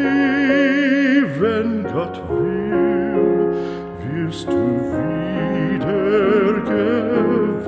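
Background music: a melody held in long notes with a wide vibrato over sustained lower chords.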